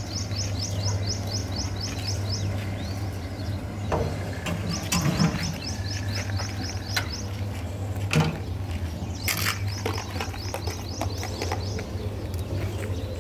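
A bird chirping in rapid runs of high notes, each run lasting about two seconds and repeating every few seconds, over a steady low hum. A few sharp knocks come in between.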